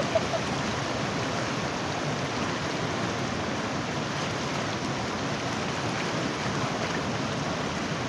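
Shallow river flowing steadily over stones, a constant even sound of running water.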